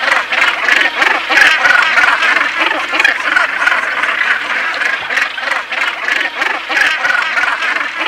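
Breeding colony of northern gannets calling: a dense, unbroken din of many birds' overlapping short calls.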